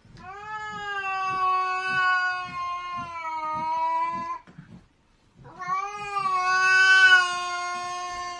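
A cat yowling at another cat: two long, drawn-out calls at a nearly steady pitch, the second beginning about five seconds in. It is a defensive threat yowl, with the cat's ears flattened back.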